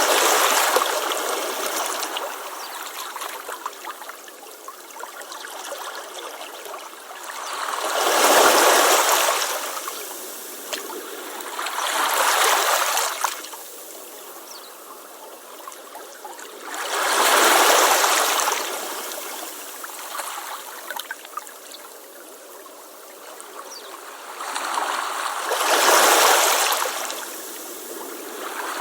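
Waves breaking on a beach: each wave surges up loudly and washes back, about five times, 4 to 9 seconds apart, with a quieter fizzing wash in between.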